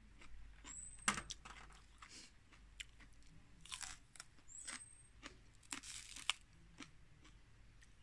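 Crisp crunching bites into raw spring onion stalks, with chewing between them; the loudest crunch is about a second in, with more near the middle and later on.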